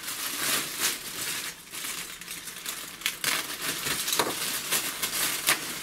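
Packaging being opened on a delivery of paper shop towels: continuous crinkling and rustling with a few sharp crackles.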